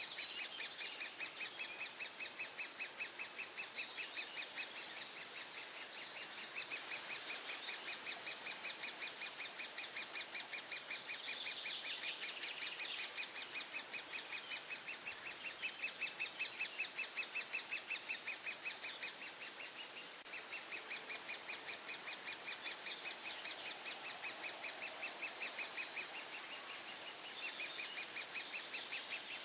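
Great spotted woodpecker nestlings begging from inside the nest hole: an unbroken, rapid run of high, sharp calls, about four or five a second.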